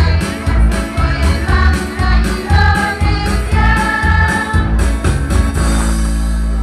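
School choir singing a madrasah anthem in Indonesian over a backing track with a steady beat and heavy bass. Near the end the music settles on a long held chord.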